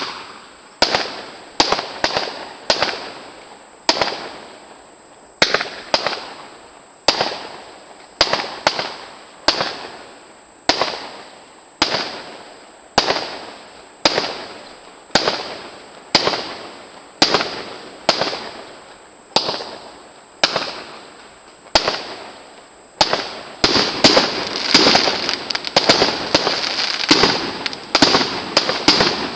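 Aerial firework shells bursting one after another, sharp bangs about once a second, each trailing off in echo. Near the end the bangs come thick and fast in a dense volley.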